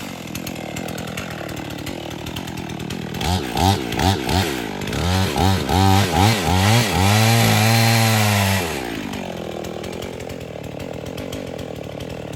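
Gas chainsaw revved up and down in several quick blips, then held at high revs for about two seconds, then dropping back to a steady idle for the rest of the time.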